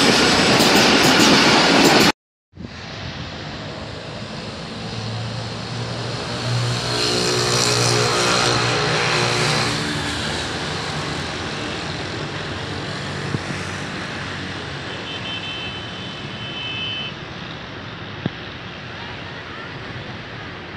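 Loud train noise that cuts off abruptly about two seconds in, then the steady low engine hum of a distant diesel locomotive running alone down the line, strongest in the middle, with outdoor background noise.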